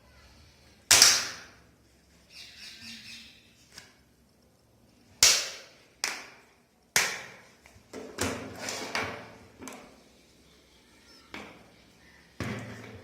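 XOLO Era 2X's plastic back cover being pried off by hand: a series of sharp snaps and clicks as its clips release, with fainter scraping and handling in between. The loudest snap comes about a second in.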